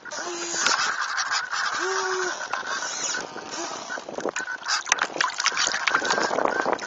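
Water rushing and splashing against the hulls of a Mini 40 radio-controlled hydrofoil trimaran under sail, with a dense crackle of spray. Two short steady tones sound in the first two seconds.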